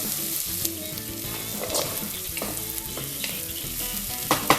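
Onions, green peas, cashews and sliced green chillies frying in ghee in a pressure cooker: a steady sizzle, with a spatula stirring and scraping against the pot in short strokes and a couple of sharper knocks near the end.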